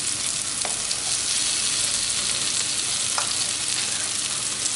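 Salmon fishcakes and cherry tomatoes sizzling steadily in vegetable oil in a frying pan, with two light clicks of a slotted spatula against the pan as the cakes are turned.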